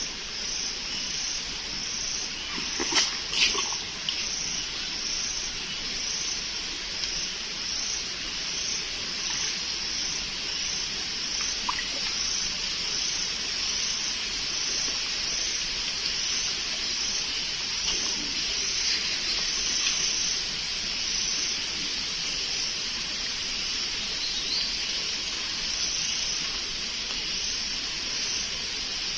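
Water sloshing and trickling as hands work a fish trap down into a shallow creek, with a couple of light knocks about three seconds in. Insects chirr steadily in a high, evenly pulsing drone underneath.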